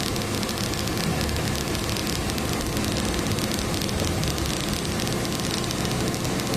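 Steady in-cabin noise of a moving car on a wet road: a low engine and road hum under an even hiss of tyres and rain.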